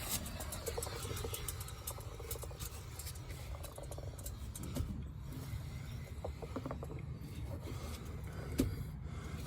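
A raised wheel turning with a steady low rumble, over which a loose piece inside the tire rattles and clicks irregularly: the broken-off base of a valve stem left inside after a flat repair, tumbling around as the tire turns.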